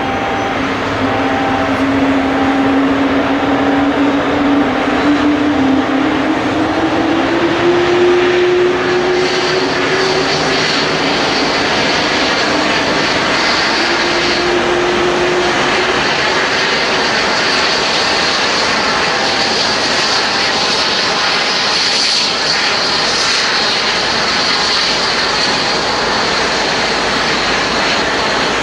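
Boeing 777-200ER's Rolls-Royce Trent 892 jet engine starting up. A low tone climbs in pitch over the first ten seconds as the engine spools up, and a high whine comes in about nine seconds in and holds over a steady rushing noise.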